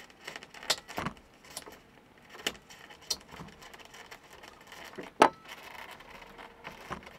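Skewers being worked by hand through a foam-board roof panel into the sidewall: scattered clicks, scrapes and short squeaks, the sharpest about a second in and again about five seconds in.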